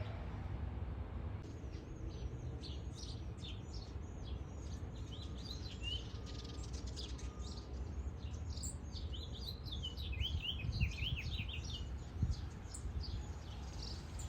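Small birds chirping and singing, with many quick, rapid notes starting about a second and a half in and growing busier near the end, over a steady low rumble.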